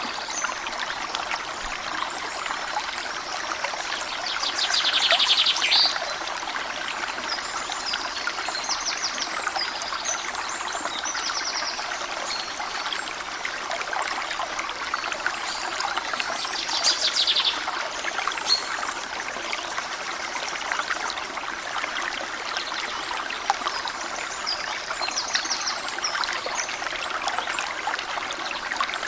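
Small stream running and trickling over stones in a steady babble, with birds singing over it: quick trills and short chirps, the loudest trills a few seconds in and again a little past halfway.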